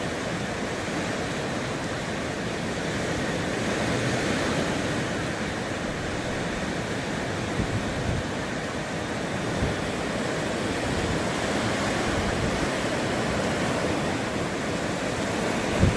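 Hurricane Irma's wind blowing steadily in gusts, rumbling and buffeting the microphone.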